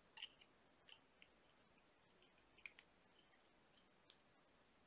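Near silence with a handful of faint, sharp clicks from copper wire and tools being handled while wire-wrapping a ring.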